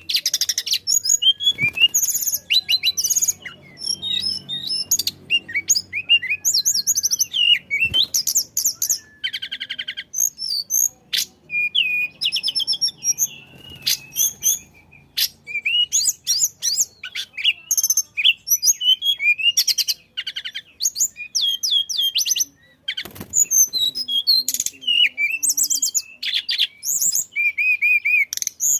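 Tledekan songbird singing non-stop: a rapid, varied run of high chirps, trills and whistled glides with barely a pause.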